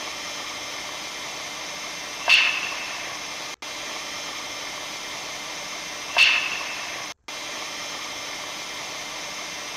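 Field recording of the sharp sound reported with the aurora borealis, about 70 m above ground: sharp snaps, each with a brief ringing tail, about four seconds apart over a steady hiss. They sound like a clink or a clank. The researchers link them to the aurora only by a possible statistical correlation.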